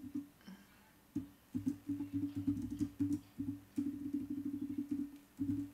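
Typing on a computer keyboard: rapid runs of dull key presses, starting about a second in, with a couple of short pauses between runs.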